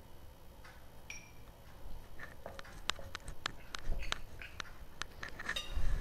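Metal spoon clinking, tapping and scraping against glass dishes while lime juice is spooned out of a small glass bowl onto spices. The taps come irregularly, a few of them ringing briefly like glass.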